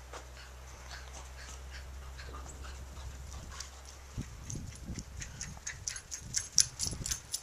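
Dogs running and scuffling on thin snow over grass: a patter of quick crunching paw-steps that gets denser and louder over the last three seconds, with a few low thumps.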